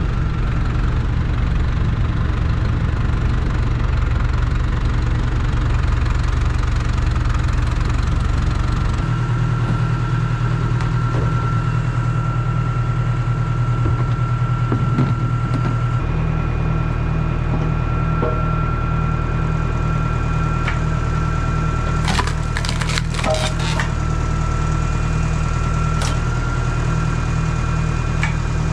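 Massey Ferguson tractor engine running steadily, driving a PTO log splitter, with a thin steady whine over it. A few sharp knocks come about three quarters of the way through.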